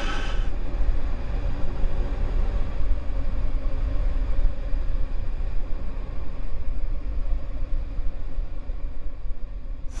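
Low, steady rumbling drone with faint held tones above it: a suspense underscore from a drama soundtrack. It cuts off near the end.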